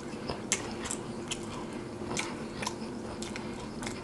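Close-miked chewing of a mouthful of chili-covered fries, with wet mouth smacks and clicks at an irregular pace, about a dozen over four seconds.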